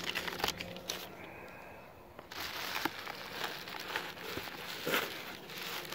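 Packing plastic and paper crinkling and rustling as a boxed drone is handled and lifted out of a cardboard shipping carton: a few sharp clicks at first, then a busier stretch of crinkling with small crackles from about two seconds in.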